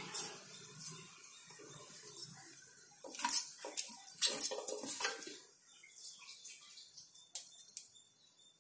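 Mustard seeds crackling in hot oil in an aluminium pressure cooker: irregular sharp pops and ticks, the loudest in the middle, thinning out near the end. A wooden spatula stirs and scrapes the seeds around the pan in the middle.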